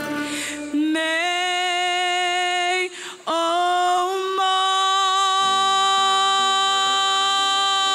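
Young male soloist singing with vibrato: he slides up into a phrase, breaks briefly for breath about three seconds in, then holds one long high note as the song's climax. Lower sustained choir voices join beneath the held note past the halfway point.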